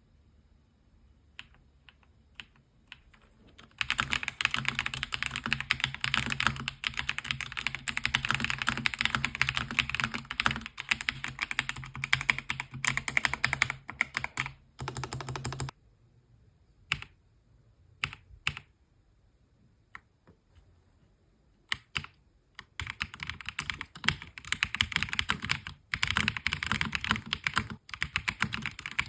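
Typing on a MelGeek Modern97 gasket-mount mechanical keyboard: a few single keystrokes, then a long run of fast continuous typing, a pause with only occasional key presses, and fast typing again near the end.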